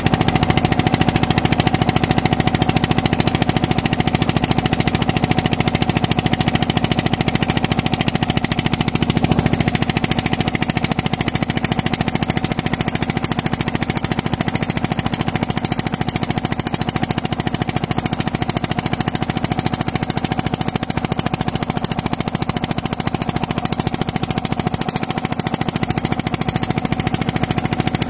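Petter diesel engine of a tube well running steadily, with a rapid, even knocking.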